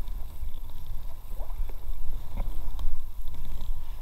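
Paddles working an inflatable boat along a brook: several short splashes and knocks as the blades dip into the water, over a constant low rumble at the microphone.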